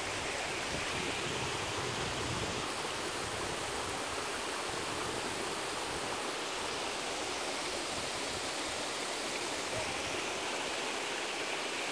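Mountain stream running over rocks: a steady, even wash of flowing water.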